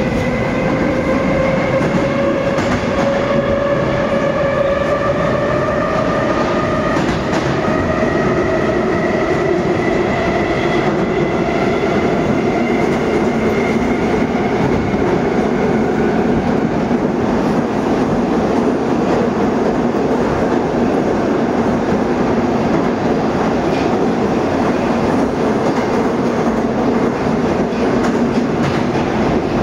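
Inside a Moscow 2024 (81-775.2/776.2/777.2) metro car running through the tunnel: the traction drive's whine rises steadily in pitch over the first half as the train gathers speed, then fades into a steady rumble of wheels on rails.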